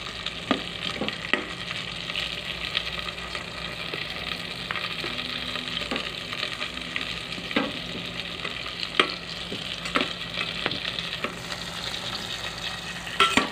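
Sweet potato slices sizzling in melted butter in a rice cooker pot, a steady hiss broken by irregular clicks and scrapes of a spoon against the pot.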